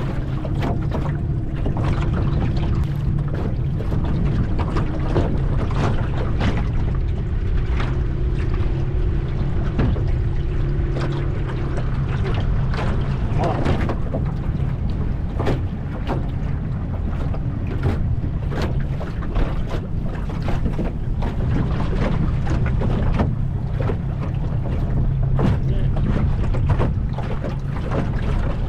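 Small outboard motor running steadily at trolling speed, a constant low hum, with frequent short slaps and knocks of water against the aluminium dinghy's hull.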